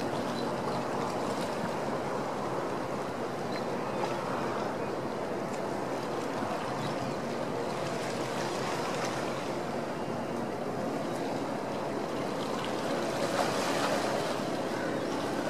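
Steady harbour sound of wind and water with a faint low engine hum from the SeaBus passenger catamaran Burrard Beaver passing across the water. The hiss swells briefly near the end.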